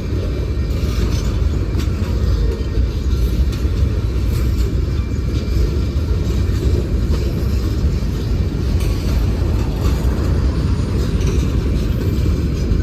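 Freight train rolling past close by: a steady low rumble of the cars' wheels on the rails.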